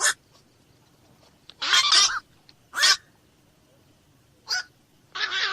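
Black-crowned night heron giving harsh, croaking 'kwak' calls: five short squawks at uneven intervals, the second one longer and doubled.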